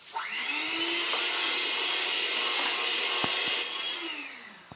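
Handheld electric mixer switched on, its motor whine rising as it speeds up, then running steadily with its beaters in a stainless steel bowl, with a couple of light knocks about three seconds in. Near the end the whine falls in pitch as the mixer is switched off and winds down.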